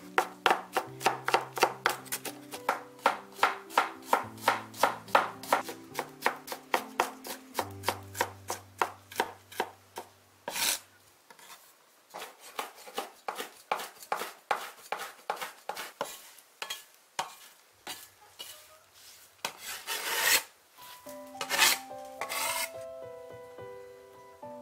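Chinese cleaver chopping garlic and ginger on a wooden chopping board: fast, even strokes about three a second for the first ten seconds, then slower, more scattered strikes with a few longer, louder strokes near the end. Soft background music plays underneath.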